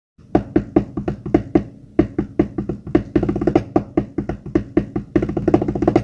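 Drums played solo as an intro: quick, even strokes about four or five a second, breaking into faster rolls twice, the second just before they stop.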